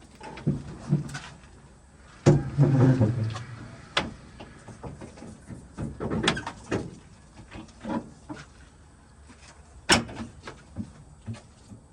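KAMAZ truck cab being tilted forward: a run of irregular knocks and clunks, with a longer low rumble about two seconds in and a sharp click near the end.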